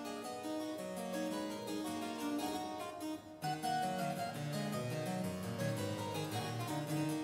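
Harpsichord music: a quick, busy run of plucked notes, with a short break about three seconds in before the next phrase.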